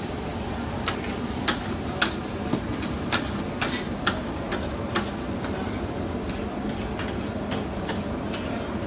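Sharp metallic clicks of a metal cooking utensil striking metal, evenly paced at about two a second, over a steady bed of background noise.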